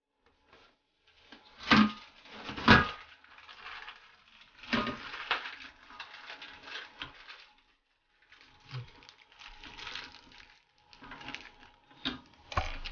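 Plastic toilet seat being fitted to a ceramic bowl: irregular clicks, knocks and plastic rattling as the hinges are lined up and fastened, with two sharp knocks about two seconds in and another cluster near the end.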